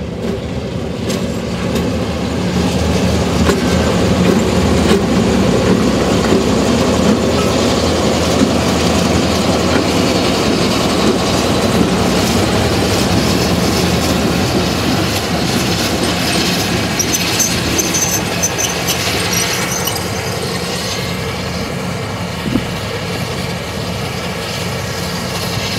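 Two coupled DJ-class diesel-electric locomotives passing close by, their engines running loud and steady, with the rumble of wheels on the rails. A high wheel squeal joins in about two-thirds of the way through as they pull away.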